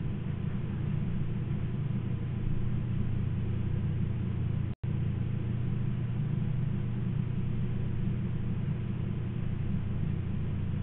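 Steady low rumble, cut off completely for an instant a little under five seconds in.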